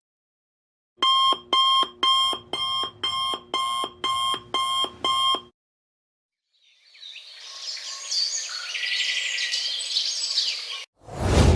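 Alarm clock beeping: about nine short, pitched beeps, roughly two a second, then stopping. After a short gap a different noisy, textured effect rises for about four seconds, and near the end a loud sudden sound with a deep low end begins.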